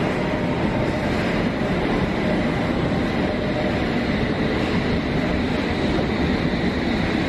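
London Underground S-stock train running into the platform: a steady, even noise of wheels on the rails.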